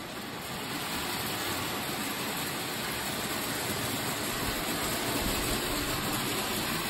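Model electric locomotive hauling a freight train of wagons along metal sectional track: a steady whirr and rattle of the motor and wheels on the rails, getting a little louder in the first second as the train comes closer.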